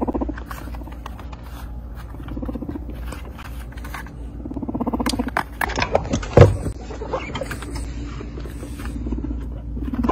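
Guinea pigs making low, rapidly pulsing rumbles in short stretches, with scattered clicks and knocks in the middle and one sharp loud knock about six seconds in.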